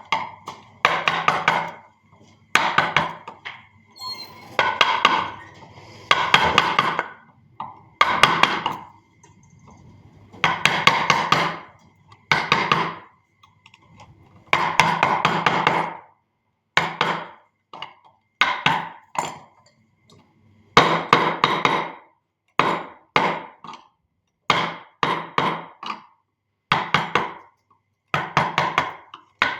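Mallet tapping a carving chisel into wood, in quick runs of several sharp knocks with short pauses between runs.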